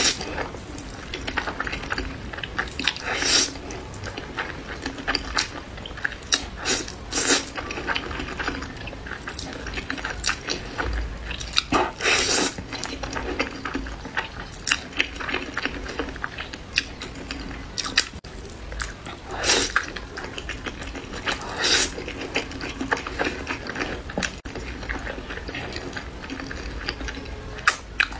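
Close-miked eating of saucy noodles: wet slurping as strands are sucked in, with chewing and lip smacks, and now and then a louder slurp.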